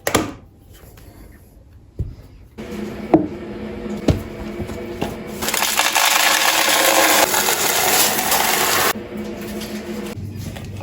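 Pantry storage containers and food packaging being handled: a few sharp knocks, then from about halfway in roughly three seconds of loud, dry rustling that stops suddenly.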